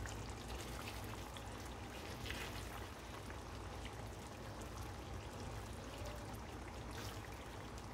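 Curry gravy simmering in a pan around meatballs, a faint steady bubbling and spitting, with a couple of soft taps from metal tongs as the meatballs are turned.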